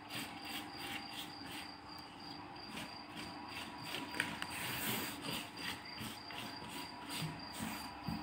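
Silicone pastry brush patting and rubbing ghee onto thin phyllo sheets: a quick, repeated papery slapping and rustling, several strokes a second.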